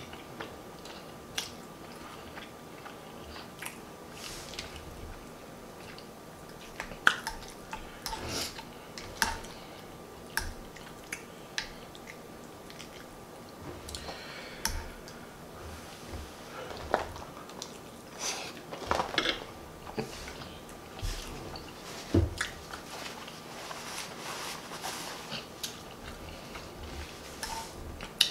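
Close-up chewing and lip-smacking of someone eating smothered turkey wings and mashed potatoes, with many short sharp wet smacks and clicks at irregular intervals.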